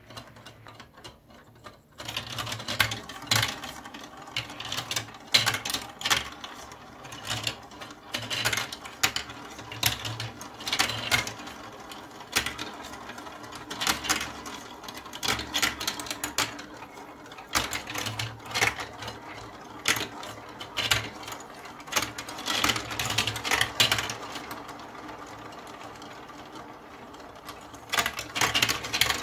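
Plastic balls rolling and rattling through a plastic block marble run: they whirl around the funnels and clatter down the chutes, with frequent sharp clacks as they drop through holes and knock into one another. The rattling starts about two seconds in and keeps up, swelling and easing as balls come through.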